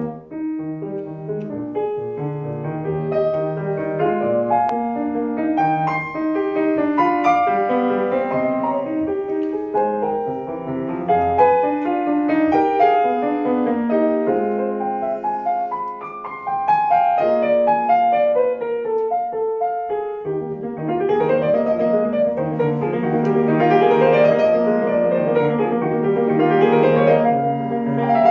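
Solo piano playing classical music, with rising and falling runs in the last third.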